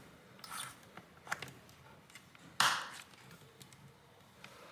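Plastic display bezel trim of a ThinkPad laptop being pressed home, giving a few sharp clicks and snaps as its clips seat, the loudest a little past halfway.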